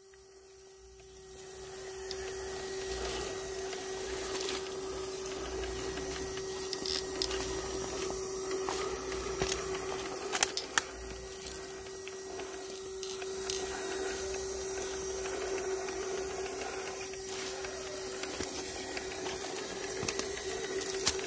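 RC scale crawler's small electric motor and gears whining steadily as it crawls over bare rock, with scattered ticks and clicks of tyres and chassis on stone. The sound builds over the first couple of seconds.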